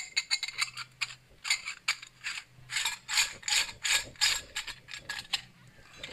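Stainless steel sev press being closed by hand: its cap turned onto the threaded barrel over the perforated disc, metal threads scraping in a quick series of short rasps.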